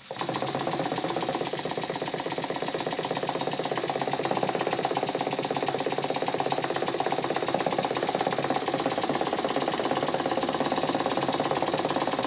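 Antique brass single-cylinder slide-valve model steam engine running fast on compressed air. It starts abruptly and settles into a steady, rapid rattling beat. The rattle comes from worn parts moving around, with play in the big end that needs adjusting.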